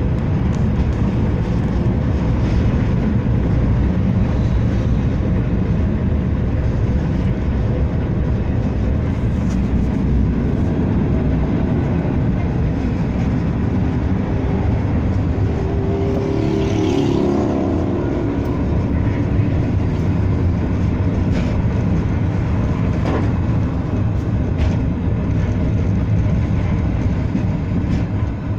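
Blackpool tram no. 715 running along its track, heard from inside the passenger saloon as a loud, steady rumble. A brief higher whine rises and falls over it a little past halfway.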